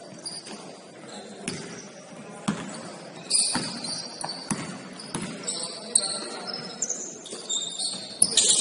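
A basketball being dribbled on a gym floor, bouncing roughly once a second, with sharp high squeaks about three and a half seconds in and again near the end.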